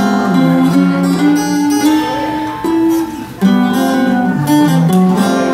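Acoustic guitar strummed, playing chords in an instrumental passage with no singing. There is a short drop in level about three seconds in before the strumming comes back in sharply.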